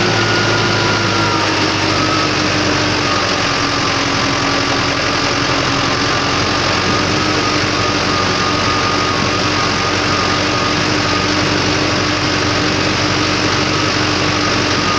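Deutz-Fahr Agroplus 75 tractor's diesel engine running steadily while the tractor drives, with a thin whine above the engine note. The pitch eases down slightly over the first few seconds, then holds steady.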